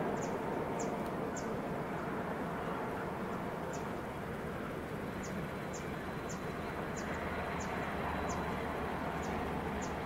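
Distant diesel-hauled freight train running along the line, a steady far-off rumble that grows deeper near the end. A high chirp repeats about twice a second over it, pausing for a few seconds in the middle.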